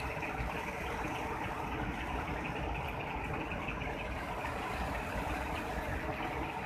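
A river in spate, muddy floodwater rushing and churning in white water past the edge of a concrete causeway: a steady, even rushing noise with no breaks.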